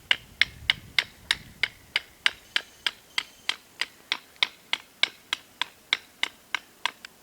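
Batoning: a stick striking the spine of a homemade knife to drive its blade down into a wooden stake, in sharp, evenly spaced knocks about three a second that stop near the end.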